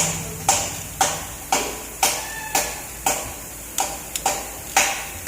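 Sharp metallic taps at an even pace of about two a second, each with a short ring: a hammer striking metal during the engine's top-end teardown.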